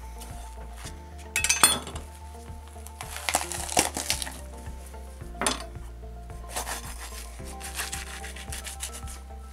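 Background music with a steady low bass line, over which a steel knife knocks and scrapes against bone and a wooden cutting board while a lamb carcass is being cut apart; the loudest cluster of knocks comes a little after a second in.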